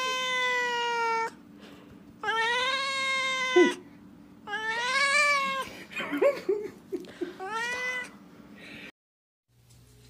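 Domestic cat meowing: four long, drawn-out meows with pauses between, the last one shorter. Near the end the sound drops away to near silence with a faint low hum.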